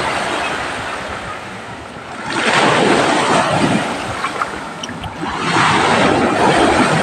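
Sea waves breaking and washing ashore, the rush swelling twice, about two seconds in and again near the end.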